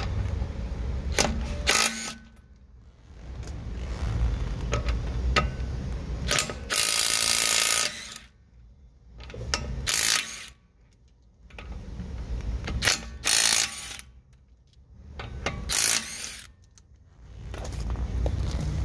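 DeWalt DCF901 12-volt half-inch subcompact impact wrench hammering in several short bursts with pauses between, loosening lug nuts on a car wheel.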